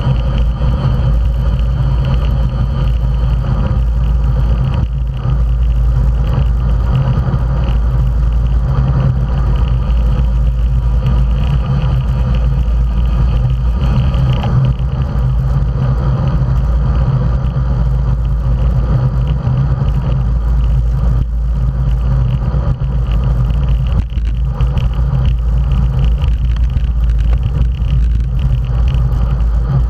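Wind and road noise on a bicycle-mounted camera moving at racing speed: a steady, loud, low rumble of air buffeting the microphone over the hum of tyres on asphalt.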